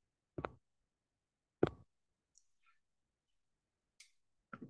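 Computer mouse clicks: a few single sharp clicks spaced out, then two close together near the end.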